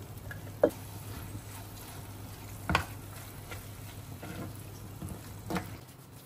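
Metal spoon stirring a thick, creamy mince mixture in a pan, with three sharp knocks of the spoon against the pan, over a steady low hum.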